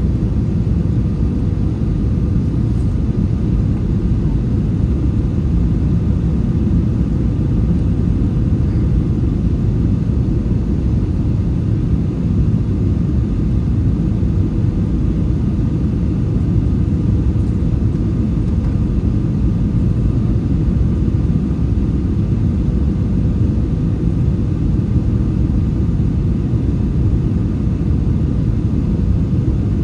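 Steady low rumble of an Airbus A321 on approach, heard inside the cabin: engine and airflow noise with a faint steady hum over it.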